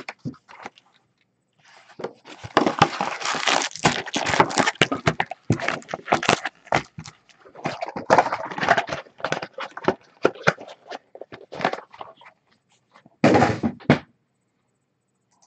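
Foil-wrapped Bowman Chrome trading-card packs crinkling and rustling as they are pulled out of their cardboard box and stacked, with small thumps of packs and box on the table. The rustling stops about a second and a half before the end.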